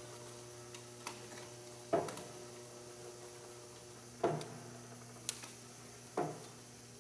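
Turntable stretch wrapper running, its drive giving a steady hum as it turns a crated load. Over it come short thumps about every two seconds and a few light ticks.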